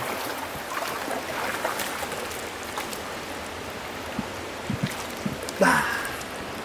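Steady rush of the trout stream's current, with a few soft thumps in the second half and a brief shout near the end.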